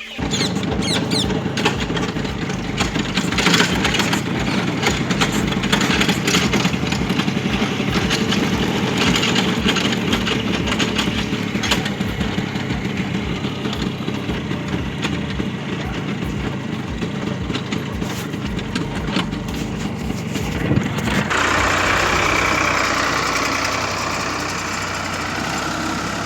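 A motor vehicle's engine running, with a rough, rumbling noise. About 21 seconds in the sound changes abruptly to a smoother, hissier running.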